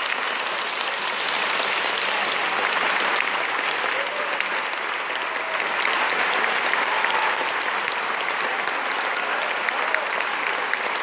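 Large audience applauding steadily, a dense even clapping that neither builds nor fades.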